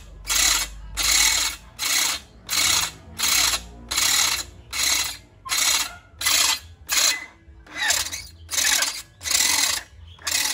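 Corded electric drill boring into the seized swingarm pivot shaft of a Kawasaki KLX, run in short bursts about one and a half times a second. The pivot shaft is being drilled out because it has seized from never being cleaned or greased.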